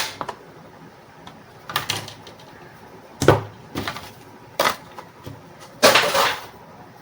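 Handling noise from a crimping tool kit being picked up and set down: scattered knocks and clicks, the loudest about three seconds in, and a half-second noisier scrape about six seconds in.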